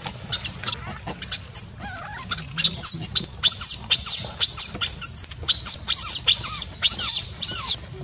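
Baby macaque screaming as it writhes on the ground: a run of shrill, arching cries, about two a second and coming faster in the second half. It is an infant's distress crying at being left by its mother.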